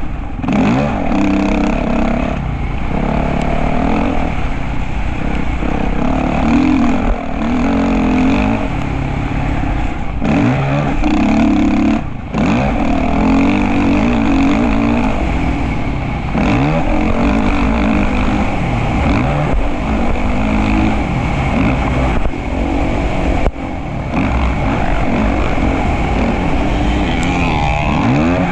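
Motocross bike engine running hard, its pitch repeatedly rising and falling as it is revved and shifted, with two short drops when the throttle is chopped.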